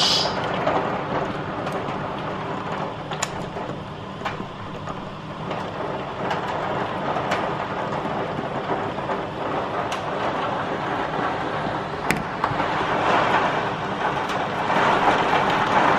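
Heavy rain and hail driven by strong wind: a steady rushing roar with scattered sharp ticks of hailstones striking, swelling louder in gusts about two-thirds of the way through and again near the end.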